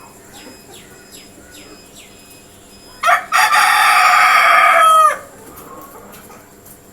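Desi rooster crowing once, about three seconds in: a loud call lasting about two seconds that drops in pitch at the end. A few faint high chirps come before it.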